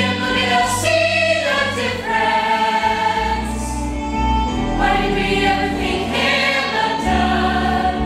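Music: a choir singing over instrumental accompaniment with sustained bass notes.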